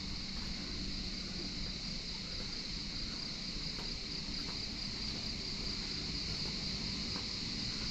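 Steady, high shrill chorus of insects with no break, over a low outdoor rumble, with a few faint footstep taps.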